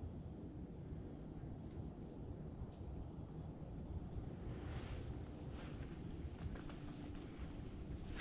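A wild animal's high, rapid trill, under a second long, repeating about every three seconds, over a steady low rumble.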